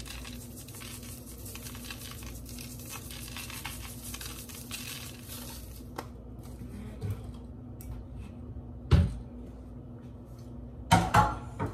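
Seasoning shaker shaken over a bowl of mashed potatoes, a rapid dry rattle for about six seconds. A click follows, then a loud thump about nine seconds in and a short clatter of kitchen items near the end.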